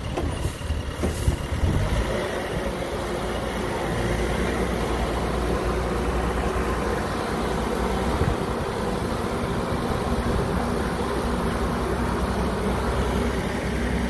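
Heavy diesel engine running, uneven for the first two seconds and then steady.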